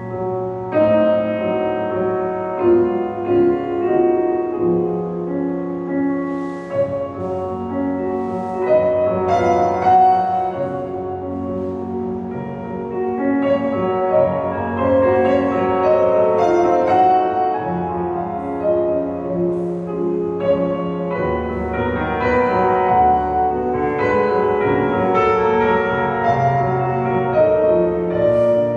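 Classical piano music, a steady melody over held bass notes.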